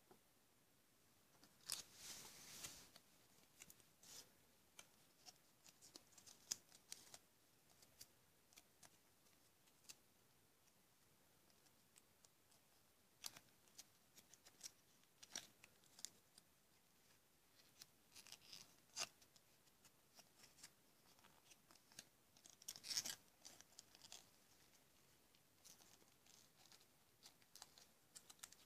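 Faint clicks and rustles of fingers handling a small plastic toy figure and a thin piece of paper or plastic. There are two louder spells of rustling, one shortly after the start and one about three-quarters of the way through.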